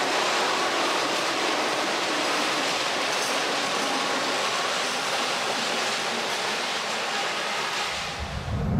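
Manila light-rail train running past a station platform: a steady rushing noise of the cars and wheels on the rails, dying away near the end.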